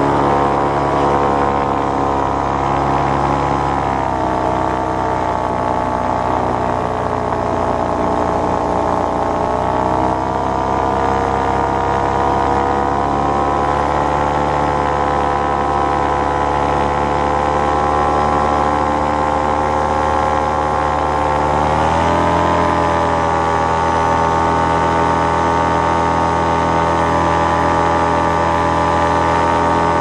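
Paramotor engine and propeller running steadily in flight. Its pitch drops about four seconds in, drifts slowly, then rises quickly a little after twenty seconds in as engine speed changes.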